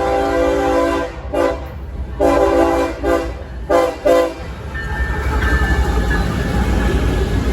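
A diesel locomotive's multi-chime air horn finishes a long blast about a second in, then gives a quick string of short toots, a horn salute. After that comes the steady rumble and clatter of the train rolling past on the rails.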